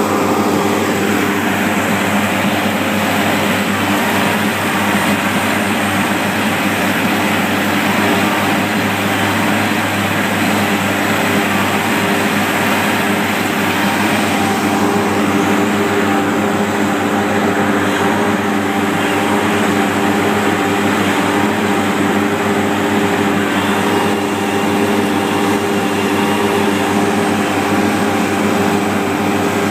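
Asphalt paver's diesel engine running steadily under load, heard up close from the operator's platform: a loud, even drone with a constant pitch.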